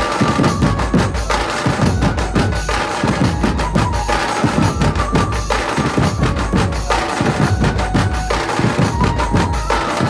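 Dhumal street band playing a qawwali tune: large barrel drums beaten with sticks in a fast, driving rhythm, with held melody notes over the drumming.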